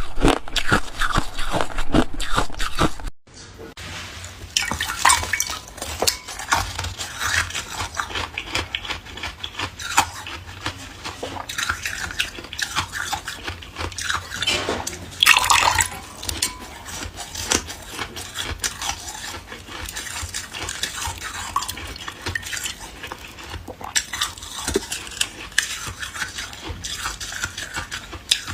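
Close-up ice eating: loud, dense crunching of hard ice between the teeth for about three seconds, then an abrupt cut. After it come quieter wet clicks and clinks of ice with occasional louder crunches.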